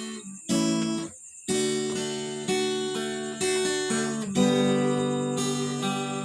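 Acoustic guitar strumming chords, each struck chord ringing and fading before the next, with a brief break about a second in.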